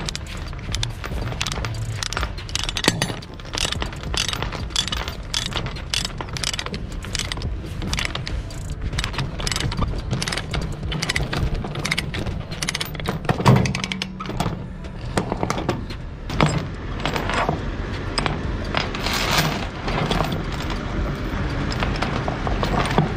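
Ratchet chain binder being cranked to tension a transport chain over steel plate: repeated clicks of the ratchet and clinks of chain links on the steel, over a low steady hum.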